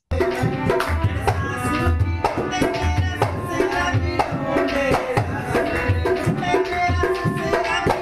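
Recording of a small hijra celebration band from India playing drums, tambourines and flutes, with a lively, steady drum rhythm under a melody.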